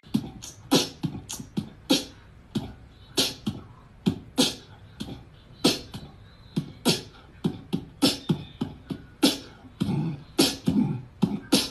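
A person beatboxing: sharp hissing hi-hat sounds alternating with short low kick-drum pops, two or three a second in an uneven rhythm.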